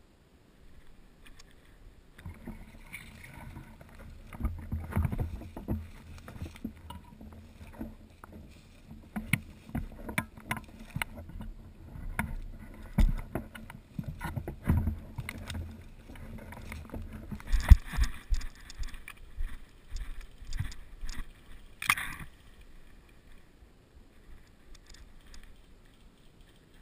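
Muffled handling and movement noise on a helmet-mounted GoPro as an airsoft player moves through forest: a low rumble with scattered knocks and rustles, and one sharp crack about 22 seconds in.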